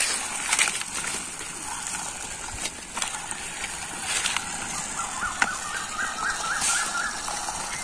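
A plastic toy train's wheels rolling and scraping along a concrete wall as it is pushed by hand, with a few faint ticks, over a steady high hiss. A little past halfway comes a quick series of about eight short high chirps.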